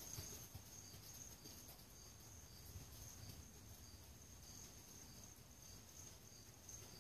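Near silence: faint, distant hoofbeats of a horse moving on arena sand, under a faint, steady high chirping that repeats about every half second.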